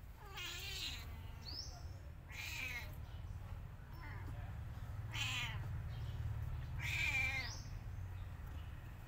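Newborn kittens mewing: four thin, high-pitched, wavering cries about two seconds apart, over a low steady hum.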